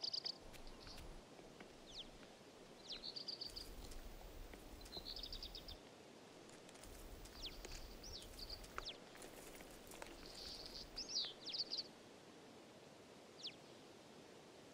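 Small birds chirping: short high trills and quick downward-sliding chirps every second or two, over a faint steady background hiss.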